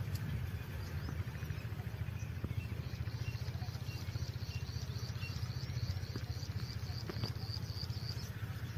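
Outdoor ambience: a steady low rumble, joined from about three seconds in by a run of short high chirps, about three a second, that stops shortly before the end. A few light clinks of a steel cup are handled in between.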